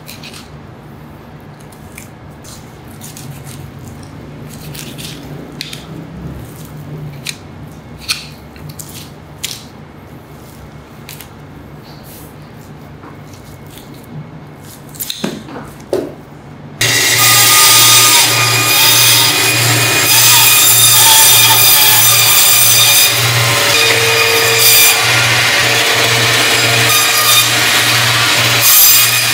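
Knife work on a hanging beef carcass gives scattered small clicks and knocks over a low hum. About seventeen seconds in, a meat band saw starts loud and runs steadily, cutting through a rack of beef ribs, with a low pulse about twice a second.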